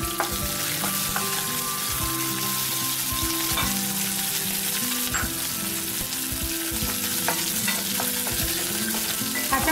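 Chopped green chillies sizzling in hot oil in a wok, among mustard seeds, chana dal, urad dal, cumin and dried red chillies. A wooden spatula stirs them, with occasional scrapes and knocks against the pan.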